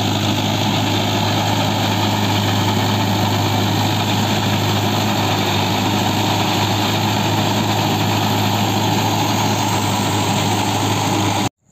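Mahindra Yuvo tractor's diesel engine running steadily under load while driving a rotary tiller through wet paddy mud. The sound cuts off suddenly near the end.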